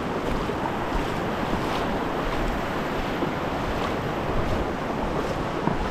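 Ocean surf washing onto the beach, a steady rushing noise, with wind rumbling on the microphone.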